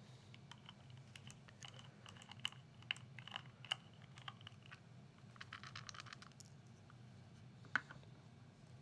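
Faint small clicks and ticks from a T-handle hex driver backing screws out of a polymer laser grip. A quick run of rapid clicks comes a little past the middle, and a single sharper click near the end.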